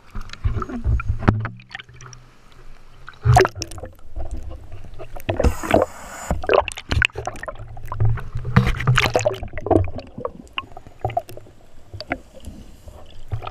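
Water sloshing and gurgling around the camera as it goes from the surface to under water: irregular splashy bursts over a low rumble, with one longer rush of water near the middle.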